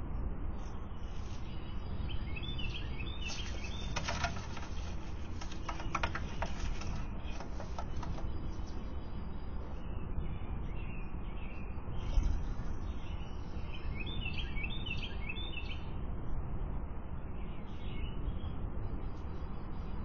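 Birds chirping over a steady low background rumble, with a run of soft clicks and rustles a few seconds in and a dull thump about twelve seconds in.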